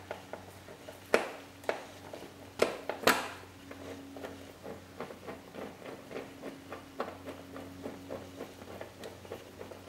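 A Torx screwdriver turning a bolt into a car door panel by hand: a few sharp clicks in the first three seconds, then light, regular ticking, a few a second, as the bolt is turned in.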